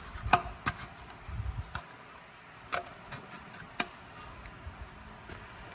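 Scattered sharp clicks and taps of plastic retaining clips being handled and pressed into place on a turbo intake pipe, with a soft low handling bump in between.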